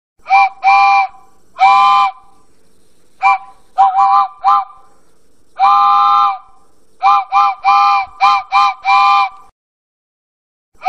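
Steam locomotive whistle sounding a chord of several tones, blown in a string of short toots and longer blasts. A faint hiss runs between the blasts.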